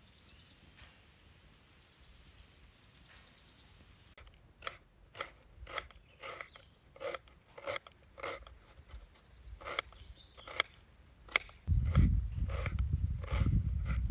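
Crisp kudya pods being finely chopped with a blade: a sharp crunchy cut about every half second, starting about four seconds in. A low rumble joins near the end.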